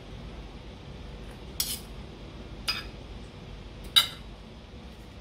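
Metal spoon and fork clinking against a ceramic dinner plate three times, the loudest about four seconds in.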